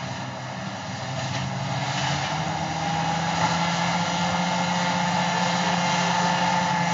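Caterpillar D10T bulldozer's big diesel engine running under load as it pushes rock downhill, growing louder over the first few seconds as it comes closer, with a steady high whine over the engine note.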